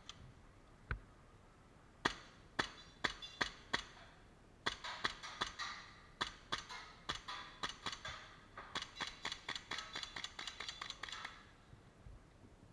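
Airsoft guns firing: a handful of single sharp pops, then long, faster strings of shots that stop shortly before the end.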